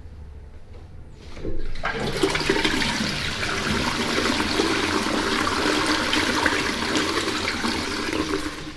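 Concealed push-button cistern flushing into a stainless steel toilet pan: after a quiet start, water rushes in loudly from about two seconds in and keeps up steadily, easing off near the end.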